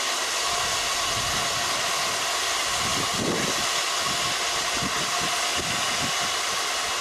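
Manning Wardle 2-6-2T steam tank locomotive standing with a steady, loud hiss that does not let up.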